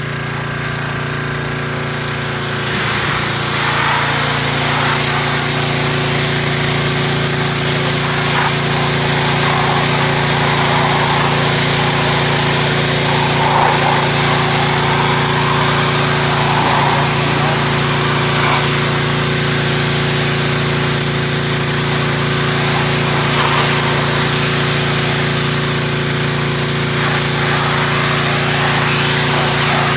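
A pressure washer's small engine running steadily, under the loud hiss of its high-pressure water jet spraying against wooden fence boards. The spray hiss swells over the first few seconds, then holds steady.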